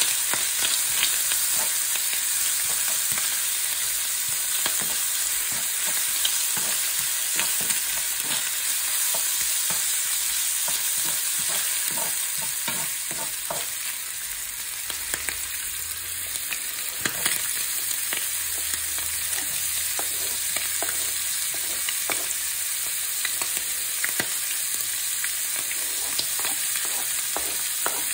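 Sliced ham sizzling in oil in a frying pan, stirred and pushed around with a spatula, with a steady hiss and many small pops and clicks.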